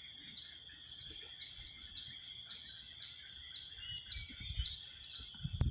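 Steady high-pitched insect drone with a short, high chirp repeating about twice a second.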